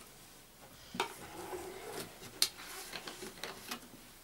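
Metal spoon knocking and scraping in a plastic bowl of grated carrot salad, with a few sharp taps about one, two and a half, and three and a half seconds in.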